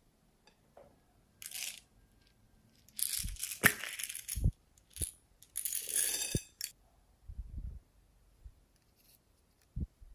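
Hands handling hollow plastic toy eggs: scattered plastic clicks, rattles and rustling, with a few dull knocks.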